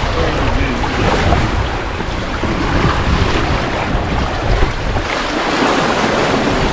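Wind buffeting the microphone over water rushing and splashing past the hulls of a Windrider 17 trimaran under sail, with a steady low rumble.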